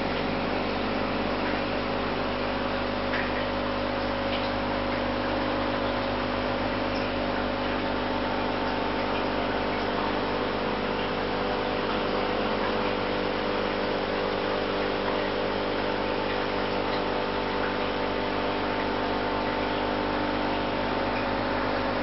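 Steady electrical or motor hum made of several held tones, unchanging throughout, with a few faint ticks.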